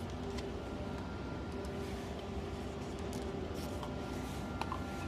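Faint steady machine hum with a held low tone for about three seconds, and a few light clicks near the end.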